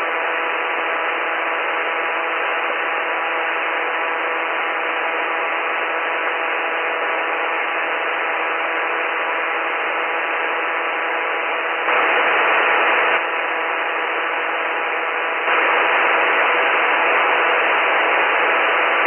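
SportCruiser light aircraft's Rotax 912 four-cylinder engine at full power in the climb-out just after takeoff, heard as a steady drone through the headset intercom, narrow and radio-like. The drone steps up louder for about a second past the middle and again about three-quarters of the way through.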